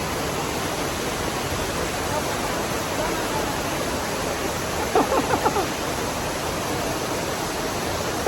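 A waterfall rushing steadily. About five seconds in, a quick run of five or six short, sharp sounds cuts through.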